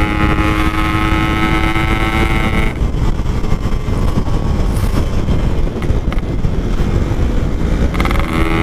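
Yamaha RX-King 135 cc two-stroke single-cylinder motorcycle engine running at a steady pitch under throttle while riding. About three seconds in the throttle is shut and the engine tone drops away under wind and road rumble, then picks up again near the end.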